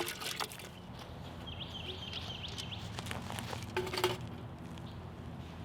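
A bird chirping a quick run of short, repeated notes. There are a few light knocks and clicks, with the loudest cluster about four seconds in.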